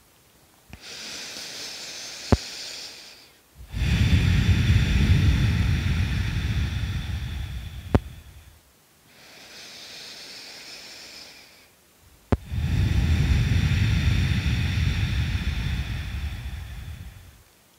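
A person breathing slowly and deeply close to the microphone: two breath cycles, each a soft hissing breath of about three seconds followed by a louder, rumbling breath of about five seconds. A few faint clicks come between the breaths.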